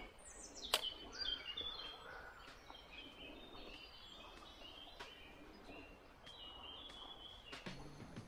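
Birdsong, short chirping phrases, over a faint steady rush of river water, with one sharp click about three quarters of a second in.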